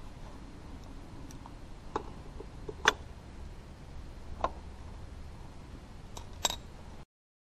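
A few sharp, irregularly spaced clicks and light metallic clinks, the loudest about three seconds in, as hands work at the scooter's gear-oil drain plug over an oil drain pan.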